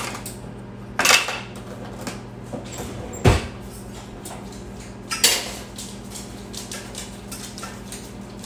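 Pots, a lid and utensils clanking as a pot of noodles on the stove is checked: a few separate clanks, the loudest a heavy knock about three seconds in, with lighter clicks between. A steady low hum from a running microwave oven lies underneath.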